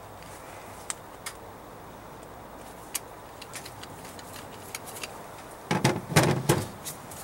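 Scattered light clicks and ticks, then a louder cluster of knocks and rattling about six seconds in: tools and small metal parts being handled during work on a diesel injection pump.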